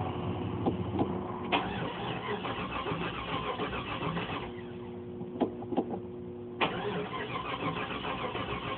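Starter cranking the 1989 Jeep Grand Wagoneer's AMC 360 V8 without it catching, in two attempts of a few seconds each with a pause between. The cranking sounds weak because the battery is low after weeks dead.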